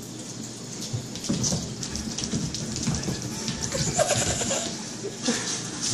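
Cats' claws and paws scrabbling on a wooden floor as they dash after a laser dot: a quick, irregular run of scratches and taps starting about a second in.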